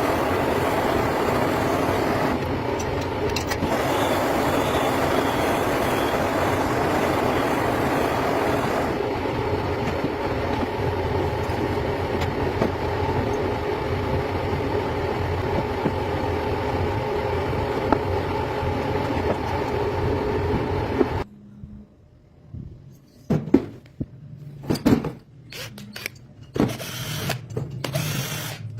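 A steady mechanical running noise for about twenty seconds, cutting off suddenly, then scattered sharp clicks and knocks of hand tools being handled.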